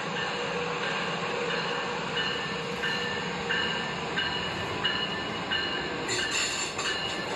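Toy LEGO passenger train running on plastic track: a steady motor whir with a pulsing beat about every two-thirds of a second, and some clatter near the end as it passes close.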